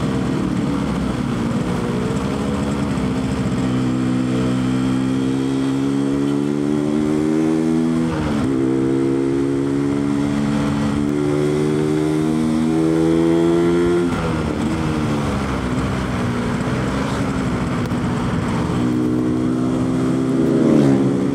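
Yamaha RX-King two-stroke single-cylinder engine with its stock exhaust, running under way as the bike is ridden. The engine note climbs slowly as it pulls, dips sharply and recovers about eight seconds in, then drops back around fourteen seconds in and holds fairly steady before falling away near the end.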